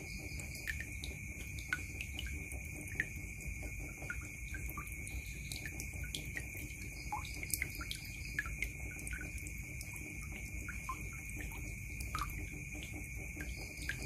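Water dripping and trickling into a blue plastic bucket already full of water: irregular plinking drops, about one or two a second. A steady high-pitched whine runs behind them.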